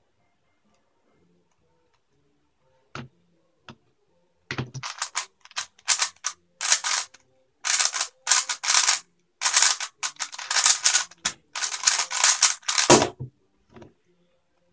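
3x3 speedcube being turned fast by hand: after a couple of lone clicks, dense clacking runs of layer turns for about eight seconds, then a heavier thump near the end.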